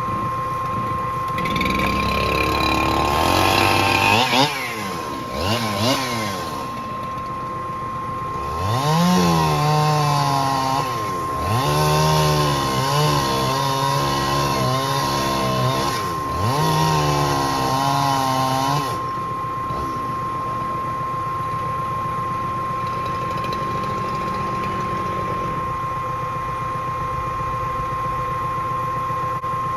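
Chainsaw revving up and down repeatedly as it cuts the ends off a spotted gum log. The saw drops away about two-thirds through, leaving a steady engine hum.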